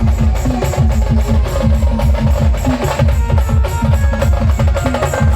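A band playing a fast song, led by heavy, rapid drumming with a melody line above it.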